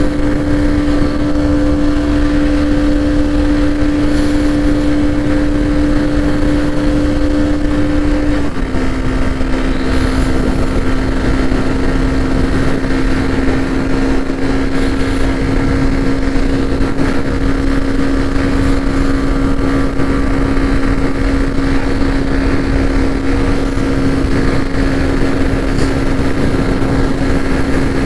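Hero Xtreme 125R's single-cylinder engine and exhaust running at a steady speed, its note dropping slightly in pitch about eight and a half seconds in.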